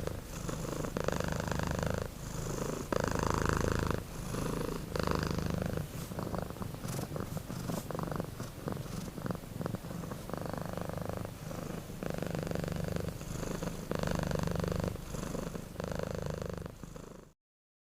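Domestic cat purring close up, swelling and fading about once a second, then cutting off suddenly near the end.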